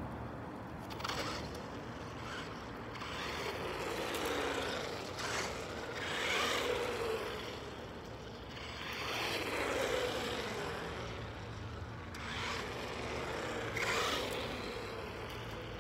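Traxxas Stampede 4x4 RC monster truck's 4,350 kV ZTW brushless motor whining, with its tyres hissing on asphalt, as the truck makes several passes. The whine rises and falls in pitch and loudness with each pass.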